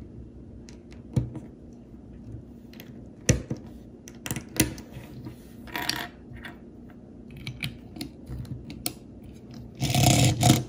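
Plastic Lego bricks clicking and tapping against each other and the wooden table top as pieces are picked up and pressed onto a small model car. The clicks come a few at a time, spread apart, with a louder scraping rush near the end.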